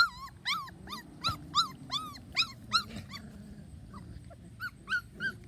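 Three-week-old standard poodle puppies crying in a quick run of short, high, arched whimpers, about three to four a second. The cries thin out about three seconds in and pick up again near the end. The puppies are crying for their mother, wanting to be fed.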